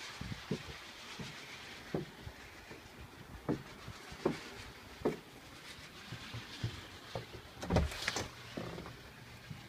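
Footsteps on wooden porch steps, a short thud every second or so, then a louder clatter near the end as the front door is opened.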